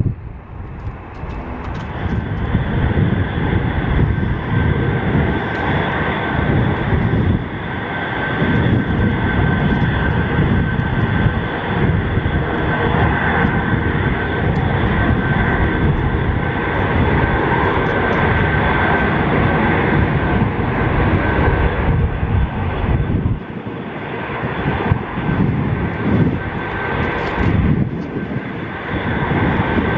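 Antonov An-124's four D-18T turbofan engines held at high power in an engine run-up before takeoff: a steady jet noise with a fixed fan whine over a low rumble that rises and falls.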